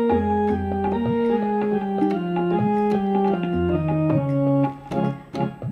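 Electronic keyboard playing the instrumental interlude between sung verses of a devotional bhajan: a melody of short notes stepping mostly downward over sustained low bass notes. Near the end the playing thins to a few short, detached notes.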